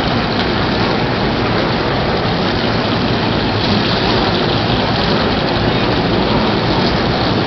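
The massed V8 engines of a field of NASCAR Nationwide Series stock cars rumbling together at pace speed, a loud, steady, dense roar with no single engine standing out.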